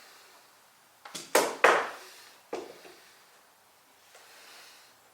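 A few sharp clacks of hard objects being handled and set down, the loudest pair about a second and a half in and one more a second later.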